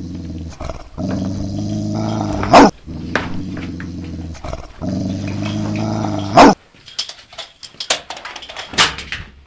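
A dog growling in two long, steady growls, each ending in a sudden loud bark, the second growl-and-bark a near copy of the first; then scattered knocks and rustles.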